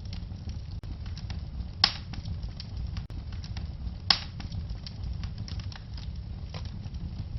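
Wood fire crackling steadily over a low rumble, with two loud sharp pops, about two seconds apart.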